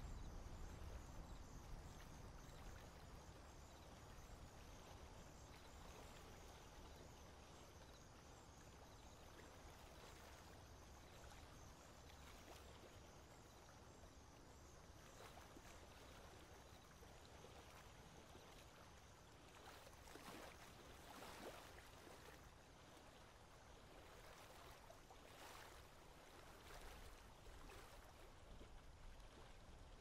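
Near silence: faint outdoor background noise with a low rumble, and a few soft, brief swishes past the middle.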